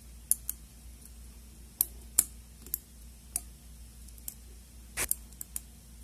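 Steel lock pick and tension wrench clicking inside a standard-pinned padlock's keyway as the pins are worked and the pick meets the warding: about a dozen short, sharp clicks at irregular intervals, several close together near the end.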